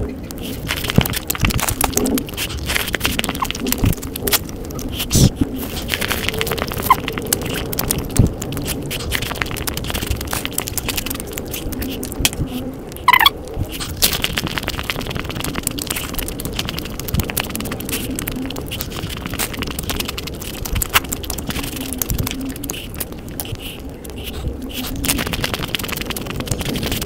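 Close-miked eating: crisp fried puri shells cracking and being crunched, with wet chewing of a soft pea curry between and a steady run of small crackles.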